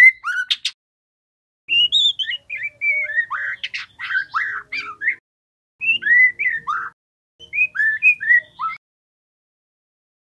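Juvenile white-rumped shama singing a young bird's practice song: quick whistled notes that slide up and down, in four bursts separated by short pauses. There are a couple of sharp clicks about half a second in.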